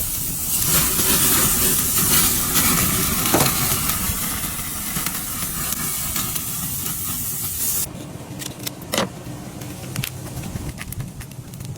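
Food sizzling on a barbecue grill: a loud, steady hiss that cuts off suddenly about eight seconds in, leaving a few scattered clicks and taps.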